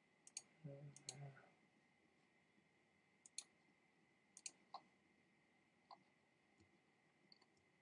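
Faint, sparse clicks of a computer mouse, single and paired, a few seconds apart, with a short low hum about a second in.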